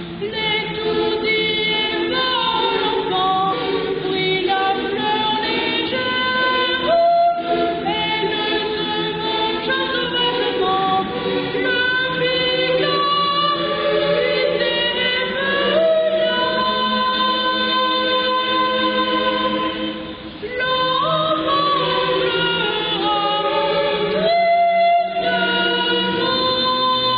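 Boys' choir singing in phrases, with a short break for breath about twenty seconds in.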